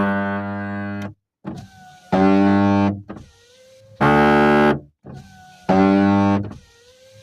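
Chery Celer's electric window motor run in repeated short strokes. Each stroke gives a loud buzz of just under a second at the same pitch, with a faint whine between strokes. This is the noise of a damaged window regulator gear.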